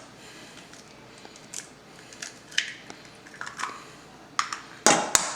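Eggs being cracked into a bowl: scattered light taps and clicks of eggshell against the bowl and shells being handled, with a sharper knock near the end.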